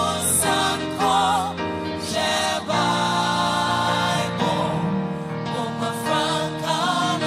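Gospel choir of male and female voices singing together through microphones, held notes wavering with vibrato, over live band accompaniment.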